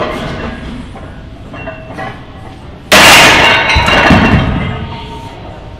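Loaded barbell set down hard with a loud metallic clank about three seconds in, the plates ringing out for a second or two, at the end of a set of squats.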